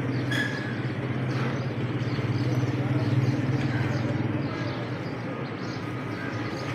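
An engine running steadily with a low, even hum, typical of a vehicle idling.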